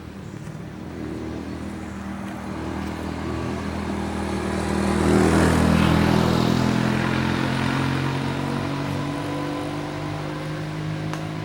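A motor vehicle passing close by: its engine grows louder, is loudest about five seconds in, then slowly fades away.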